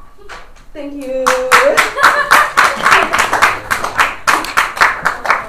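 Small audience applauding: scattered hand clapping starting about a second in, just after a voice says "thank you".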